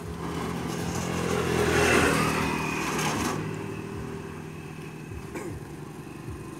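A motor vehicle passing over a steady engine hum, growing louder to a peak about two seconds in and then fading away.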